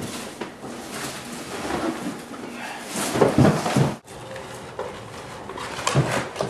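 Rustling and clattering as a plastic garbage bag is handled at a kitchen counter, with a brief cry about three seconds in.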